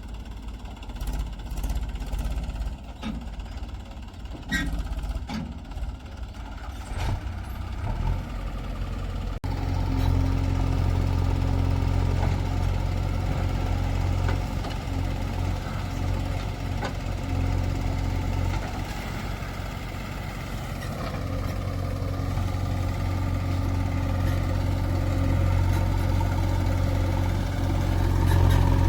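Heavy diesel engine running. The first few seconds are quieter, with scattered clunks and knocks. About nine seconds in the sound jumps suddenly to a loud, steady low engine drone that holds to the end.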